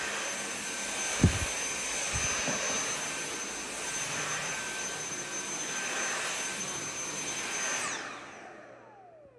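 Cordless stick vacuum cleaner running over a hard floor with a steady high whine, picking up spilled diamond-painting drills. A sharp knock comes about a second in and a smaller one a second later. Near the end the motor is switched off and winds down, its whine falling in pitch as it fades.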